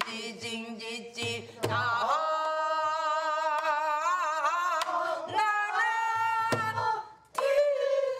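Korean traditional singing: a voice holding long notes with a wide, wavering vibrato, with a few sharp drum strokes and a brief break about seven seconds in.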